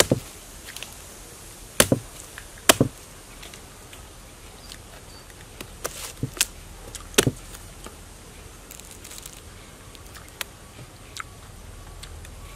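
Knife chopping and cutting into the fibrous heart of a palm trunk: a series of sharp, irregularly spaced chops and cracks, the loudest about two, three and seven seconds in, with fainter ticks later.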